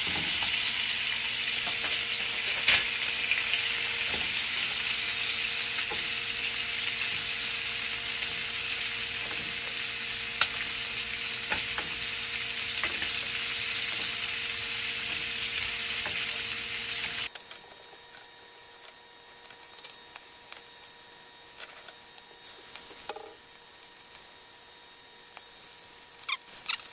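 Veal sweetbreads sizzling steadily as they pan-fry in oil in a nonstick frying pan, with occasional clicks of a fork and spoon against the pan as they are turned and basted. About two-thirds of the way through, the sizzle drops suddenly to a much quieter level.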